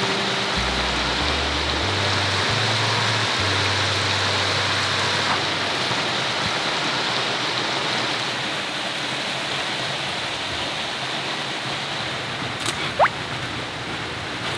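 Mountain stream running over rocks: a steady, even rush of water. Near the end, a click and one short rising whistle.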